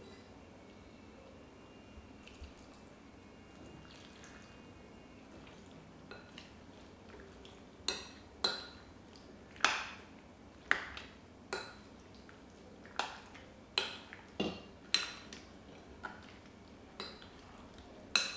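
Milk poured quietly into a glass bowl of cut fruit and soaked sago. Then a spoon clinks against the glass bowl about a dozen times, roughly once a second, as the milky fruit salad is stirred.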